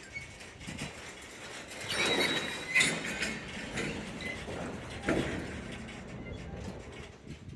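Railway wagons moving through a shunting yard: irregular clanking and knocks of wheels and couplings, with a brief high squeal, loudest about two to three seconds in.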